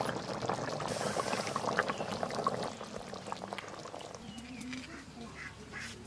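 Fish curry boiling hard in a metal kadai over a wood fire, a dense bubbling that fades about four seconds in as the pan is taken off the heat.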